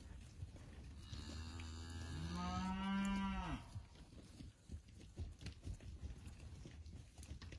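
A heifer mooing once: one long call of about two and a half seconds, beginning about a second in, rising in pitch, holding, then falling away as it ends.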